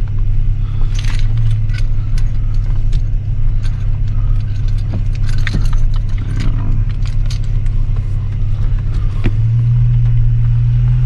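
Car engine and road noise heard from inside the moving car's cabin: a steady low drone that grows slightly louder near the end, with scattered light clicks and jingling rattles.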